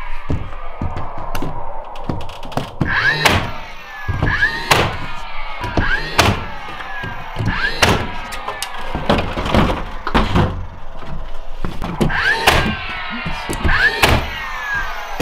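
A DeWalt cordless nailer fires nails into wooden wall sheathing: a series of sharp shots, roughly one every one to two seconds, with the tool's motor whirring between them.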